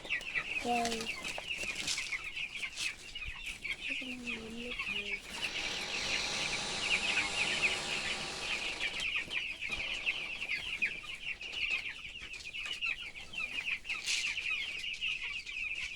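A flock of chickens chirping constantly, a dense high-pitched chatter of many overlapping peeps, with a few lower calls near the start.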